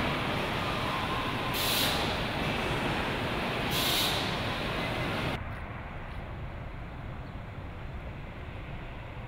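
Truck assembly plant floor noise: a dense, steady machinery din broken by two short air hisses about two seconds apart. About five seconds in it cuts abruptly to a quieter, duller outdoor background rumble.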